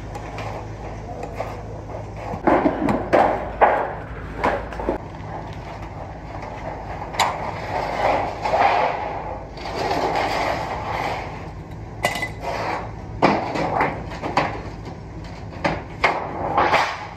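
Thin stainless steel sheet being cut with long-handled hand shears and handled on a concrete floor: irregular sharp metallic snips and clanks, with longer stretches of the sheet rattling and flexing.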